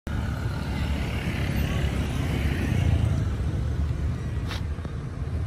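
Street traffic with motor scooters riding past: a steady low engine and road rumble that swells to its loudest about three seconds in.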